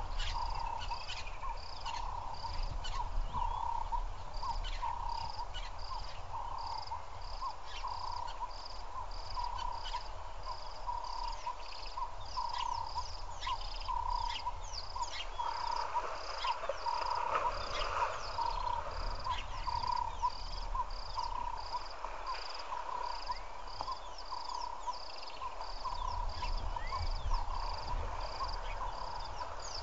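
A chorus of repeated animal calls, one call about one and a half times a second and very regular, with scattered short chirps and clicks over a low steady rumble.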